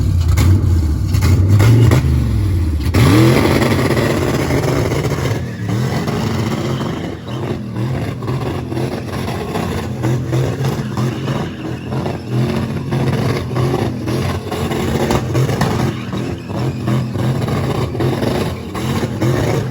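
Race car engine revved hard: the pitch wavers, climbs about three seconds in, then the engine runs on loudly under load with a fast, dense rattle over it.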